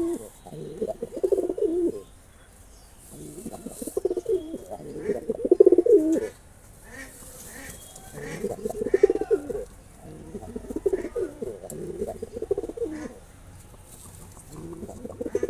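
Male domestic pigeon cooing in repeated low, warbling bouts of a couple of seconds each, with short pauses between: courtship cooing directed at a female.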